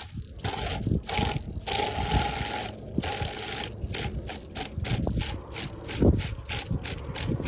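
Kite string being worked fast in a kite fight. A rasping hiss comes in a few long strokes, then in short rapid strokes about four a second through the second half. Low wind rumble sits on the microphone.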